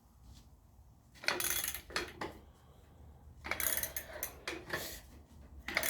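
Metal tools and bolts being handled while a tractor seat is bolted down: short bursts of rapid metallic clicking and clinking, about five times.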